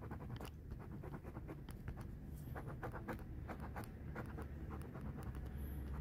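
Stylus tip tapping and stroking on a smartphone's glass touchscreen while drawing, in many short, quick, irregular strokes.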